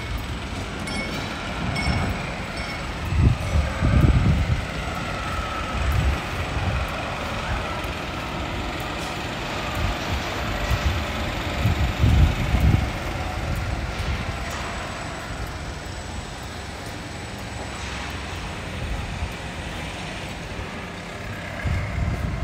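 City street traffic: vehicles passing in a steady wash of noise, with a few low gusts of wind buffeting the microphone.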